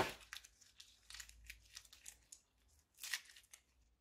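Slime being squeezed out of a plastic bag onto a tray of slime and foam beads: a quick run of faint crackles and clicks, loudest at the start and again about three seconds in.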